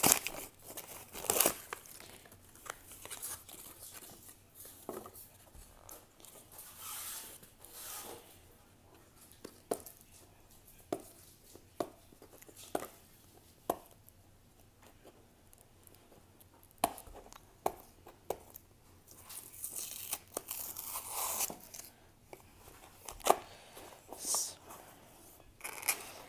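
Cardboard packaging being torn open by hand and cut with scissors: short ripping and crinkling sounds with sharp snips and clicks at irregular intervals.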